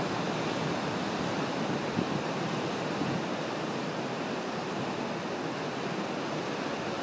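Ocean surf washing over rocks offshore, a steady rushing noise, with some wind on the microphone.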